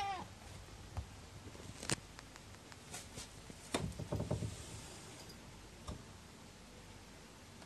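A fusuma, a wooden-framed paper sliding door, pulled open with a short clatter of knocks and rattling about four seconds in, after a few scattered taps. A cat's meow trails off right at the start.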